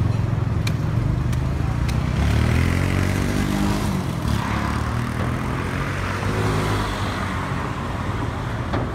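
Street traffic: motorbike and car engines running close by over a steady low rumble. Engine notes rise and fall in pitch through the middle.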